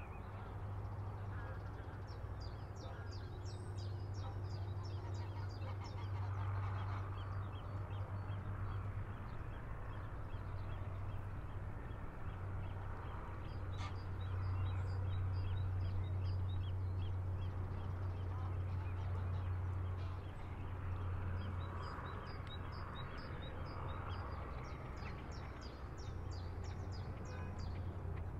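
River shore ambience: water birds calling, with ducks quacking and spells of rapid, high chattering calls, over a steady low drone and a soft wash of water.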